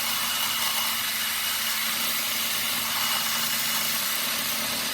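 Handheld power cutting tool fitted with a fresh edge blade, running steadily with an even hum and hiss, used to cut the copper winding off a microwave magnetron.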